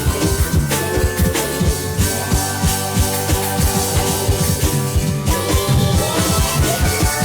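Rock music with a steady drum-kit beat and guitar.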